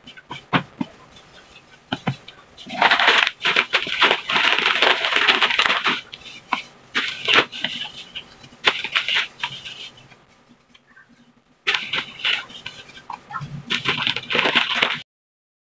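The plastic wrapper of a graham cracker pack crinkling in long spells as crackers are pulled out and laid in a plastic tub, along with the rustle of a plastic food-prep glove. The sound cuts off suddenly near the end.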